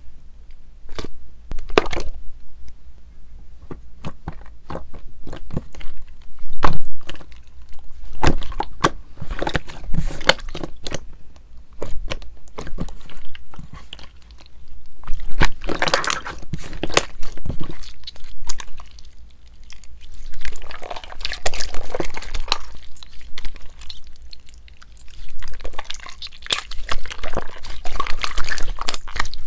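Hands poking, pressing, stretching and squeezing a glossy clear slime full of small red beads. It makes sticky popping and clicking as it pulls off the fingers and the container, with denser crackly squishing when it is stretched and folded, about halfway and again near the end.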